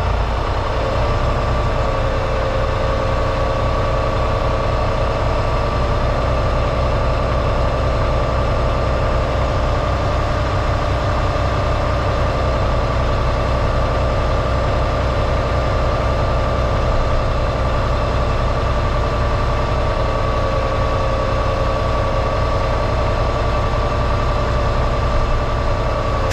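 Semi truck's diesel engine idling steadily, a low rumble with a steady higher tone over it, while it builds air pressure back up in a low secondary air tank.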